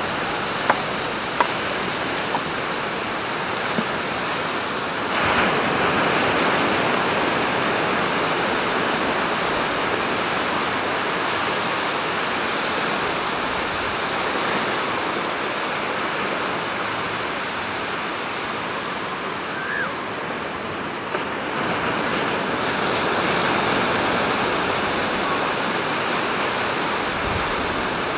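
Sea surf washing onto a sandy beach: a steady rushing that swells about five seconds in. A few sharp clicks in the first two seconds.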